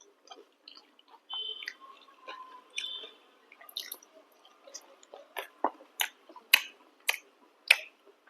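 Close-up chewing and wet mouth sounds of someone eating chicken curry with chapati, with a series of sharp smacks and clicks in the second half.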